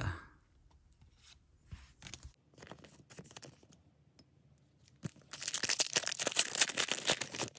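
Foil wrapper of a Disney Lorcana booster pack being torn open by hand: a dense crackling rip lasting about two seconds, starting about five seconds in. Before it, faint clicks and rustles of trading cards being handled and set on a stand.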